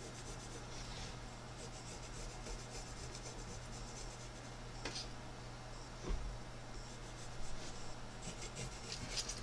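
Pencil sketching on the handle of a carved cedar spoon: faint, light scratching strokes over a steady low hum, with a couple of small ticks midway.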